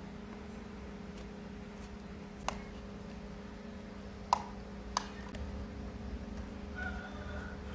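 A small screwdriver working the tiny outer case screws of a Sony WM-R2 Walkman cassette player: a few sharp clicks of metal on the casing, the loudest a little past the middle, over a steady low hum.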